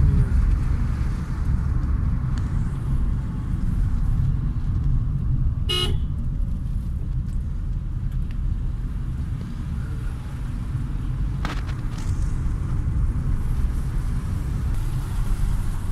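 Steady low rumble of a car's engine and tyres heard from inside the cabin on a moving drive, with one short car-horn toot about six seconds in.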